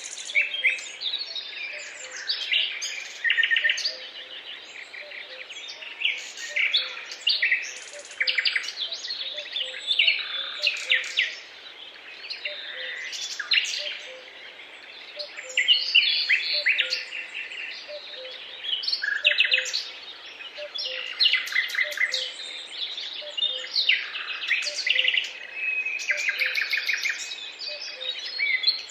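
Several birds singing and calling over one another in a dense chorus of chirps, whistles and rapid trills, over a faint steady background hiss.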